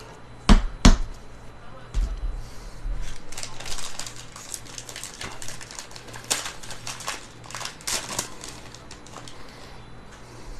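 Two sharp knocks, then a run of crinkling and rustling as trading card packs are torn open and the cards handled.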